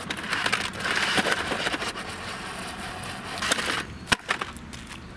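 Virhuck Stunt X 4WD stunt car, a small battery-powered RC toy, driving at a concrete ramp, its wheels rolling and scrabbling on rough asphalt and concrete. A few sharp knocks come past the middle as it tips at the foot of the ramp, its battery thought too weak for the climb.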